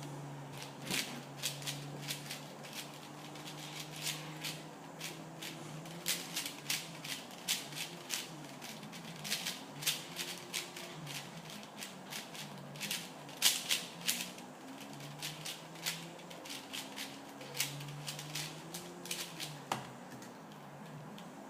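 A 4x4 speed cube (Rubik's Revenge) being turned fast in a solve: rapid, irregular plastic clicks and clacks of its layers snapping round. There are short flurries, the loudest about two-thirds of the way through.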